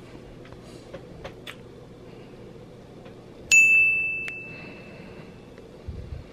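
A single bright bell-like ding about three and a half seconds in, ringing out and fading over about two seconds, with a few faint clicks before it.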